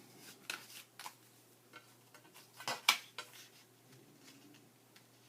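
Scattered light clicks and taps of paper and craft tools being handled on a work surface, with two sharper knocks close together about three seconds in.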